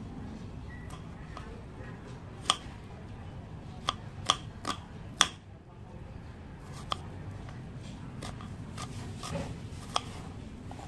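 Kitchen knife slicing shallots on a round wooden chopping board: a series of sharp, irregularly spaced knocks as the blade strikes the wood, over a steady low hum.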